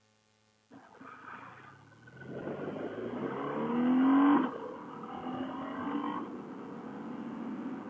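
BMW GS motorcycle pulling away from a stop and accelerating hard: the engine note climbs in pitch, drops at an upshift about four and a half seconds in, climbs again, then settles into a steady run.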